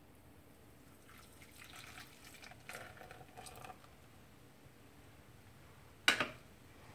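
Beer poured from a measuring jug into a saucepan: an uneven splashing trickle for a little under three seconds. Near the end comes a single sharp knock, louder than the pour.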